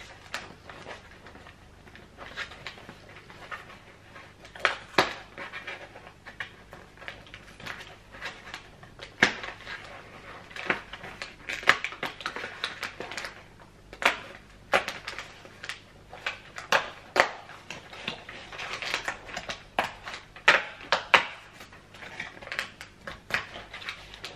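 Cardboard advent calendar and small boxed tea being handled. Irregular clicks, taps and rustles as a door is worked open and the box pulled out.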